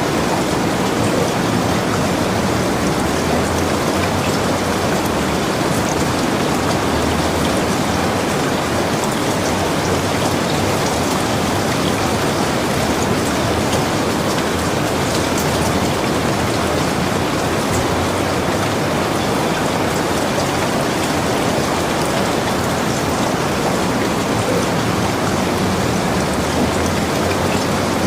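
Steady heavy rain falling, an even wash of drops without a break.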